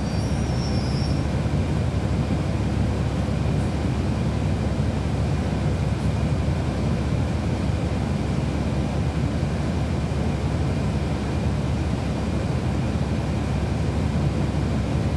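Cabin noise aboard a 2012 NABI 40-foot transit bus under way: its Cummins ISL9 diesel engine and ZF Ecolife automatic transmission run with a steady low rumble of road and body noise.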